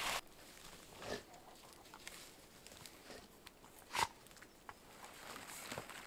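Quiet woodland with brief handling noises from a wooden pole being set up by hand: a sharp knock about four seconds in, and a soft rustle a second in and again near the end.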